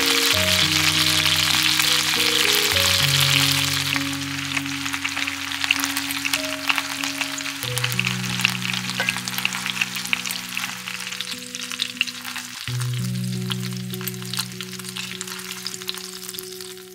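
Chicken drumsticks sizzling in hot oil in a frying pan. The sizzle is dense at first, then turns lighter with scattered crackling pops from about four seconds in. Soft background music of held chords plays underneath.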